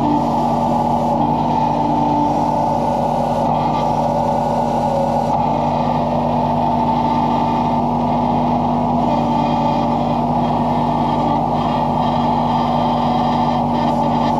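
Tractor-mounted backhoe's engine running steadily at an even, moderate speed, its pitch unchanged throughout.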